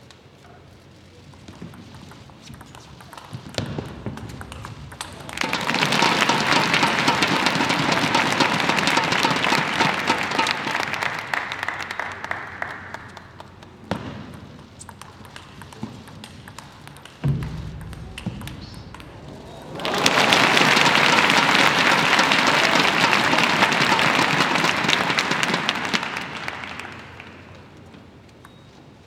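Spectators applauding in two bursts of about seven seconds each, with a single thump between them.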